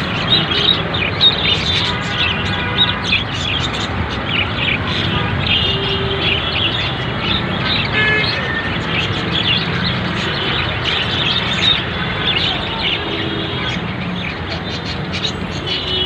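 Budgerigars chattering: a continuous stream of many short, overlapping warbling chirps, over a steady low background noise.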